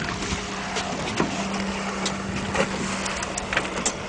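Water sloshing against a boat's hull, under a steady low hum that stops near the end, with scattered small knocks and clicks.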